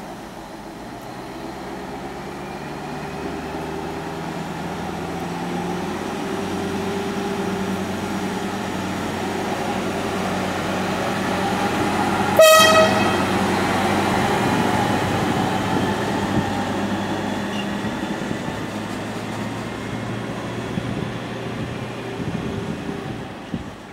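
Swietelsky track tamper DR 73940 running through on its diesel engine, with the rumble of its wheels on the rails, getting louder as it approaches and passes close by, then easing off as it moves away. About halfway through it gives one short, high horn toot.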